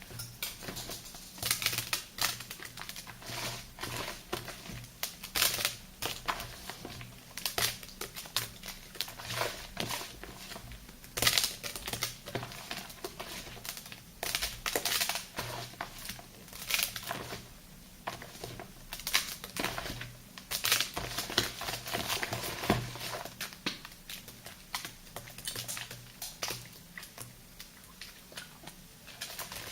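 Thick soap lather and sea-salt paste being squished and worked close to the microphone, in irregular crackly, gritty strokes.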